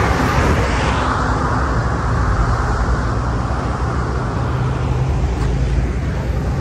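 Road traffic: a car passing, its tyre and engine rush strongest in the first second or so and then fading, over a steady low rumble of traffic.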